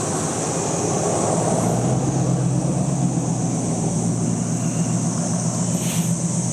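An engine humming steadily, coming up louder about a second and a half in, over a constant high-pitched hiss, with a short click near the end.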